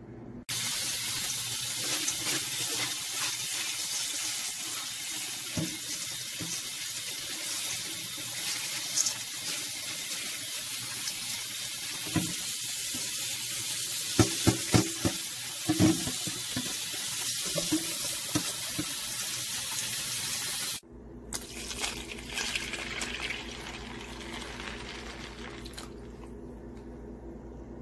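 Tap water running steadily over dried great northern beans in a metal colander as they are rinsed, with a few knocks and rattles partway through. About twenty seconds in it cuts off abruptly, leaving a quieter low hum with some light clatter.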